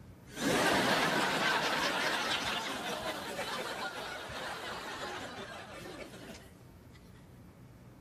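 Studio audience laughing. The laughter swells about half a second in, then dies away over the next six seconds.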